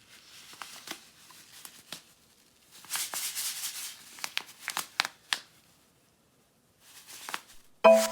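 Packaging being handled: light clicks and taps, a crinkling, tearing rustle about three seconds in, then a few sharper clicks. Music starts loudly near the end.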